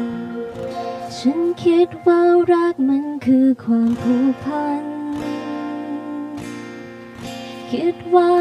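A young woman singing solo into a microphone over instrumental accompaniment. She sings a short phrase of changing notes, holds one long note in the middle that slowly fades, then starts a new phrase near the end.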